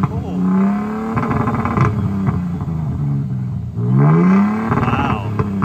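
Toyota Tundra TRD Pro's V6 engine revving through a Carven cut-and-clamp exhaust with the resonator-deleted TRD axle-back, giving a super deep, throaty exhaust note. A brief rev comes first, then a longer rising rev about four seconds in.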